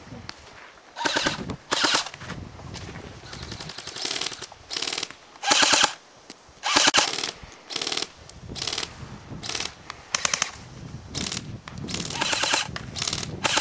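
Airsoft rifles firing on full auto in more than a dozen short bursts, each a rapid, even stream of clacks lasting under a second. Some bursts are nearer and louder than others.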